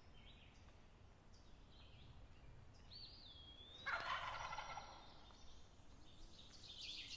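A wild turkey gobbler gobbles once about four seconds in, a loud rattling gobble lasting under a second, with small songbirds chirping and whistling around it.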